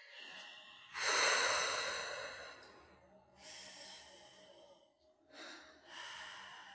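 A woman snoring in her sleep: several rasping, open-mouthed breaths with a buzzing rattle, the loudest starting about a second in.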